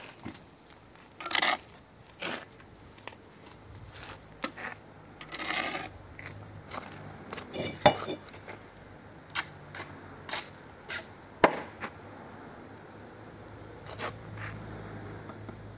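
Steel brick trowel scraping and spreading wet mortar and tapping hollow-cored red bricks down to the line: a run of irregular scrapes and sharp knocks, two knocks standing out about a third and two thirds of the way in.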